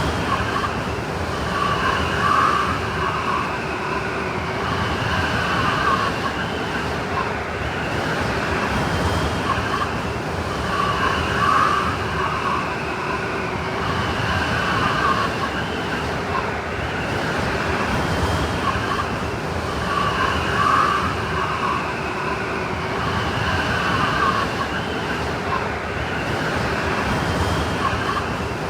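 Snowstorm wind blowing in a steady roar, with whistling tones that swell and fade in gusts every few seconds.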